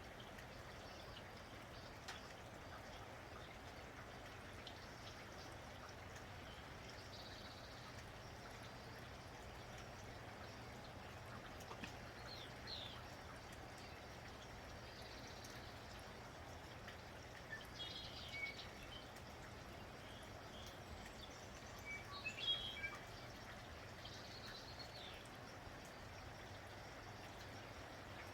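Faint, steady rain falling, with scattered short bird chirps over it; the loudest cluster of chirps comes about three-quarters of the way through.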